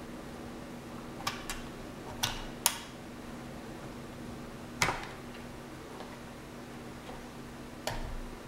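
Half a dozen sharp, irregularly spaced clicks and knocks as the plugs and leads of a lipo charger and a parallel charging board are handled, over a low steady hum.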